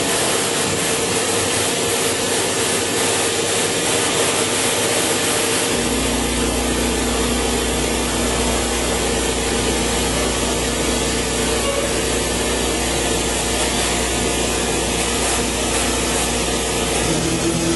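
Large horizontal CNC machining centre running: a steady mechanical hiss with a constant hum, joined about six seconds in by a deeper drone that holds.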